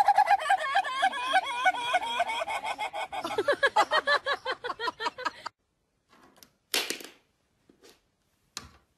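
A caique parrot giving a rapid series of short chirping calls, several a second, which drop lower in pitch about three seconds in and stop after about five and a half seconds.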